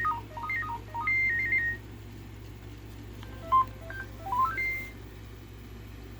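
Sony Aibo ERS-210 robot dog playing its electronic beep melodies, two quick runs of stepped tones, the second climbing in pitch. A sharp click comes about three and a half seconds in.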